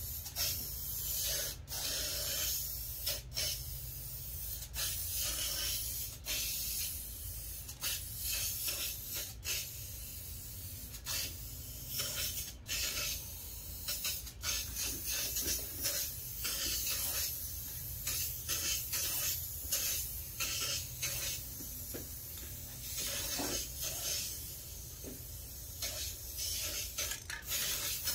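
Aerosol can of Rust-Oleum Universal clear top coat spraying in long hissing passes, broken by short pauses every second or two, as a sealing coat goes on. A steady low hum runs underneath.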